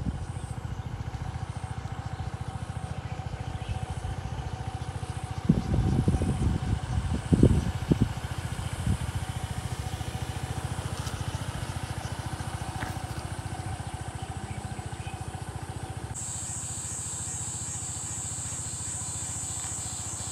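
SYM Woo 115 scooter's small single-cylinder engine running steadily, with a cluster of loud thumps about six to eight seconds in. Near the end the engine sound drops back and a steady high-pitched hiss takes over.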